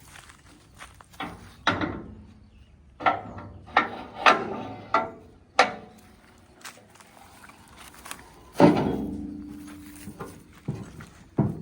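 Irregular knocks and thuds, about a dozen in all. The loudest is a heavy knock about eight and a half seconds in, with a short ringing tail.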